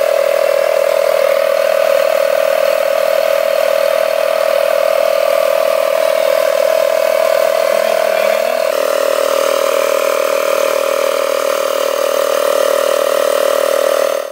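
Portable 12-volt tire inflator's compressor running steadily, pumping air into a car tire through a hose screwed onto the valve stem; a loud, even buzzing hum. Its tone shifts slightly lower about two-thirds of the way through, and it cuts off abruptly at the end.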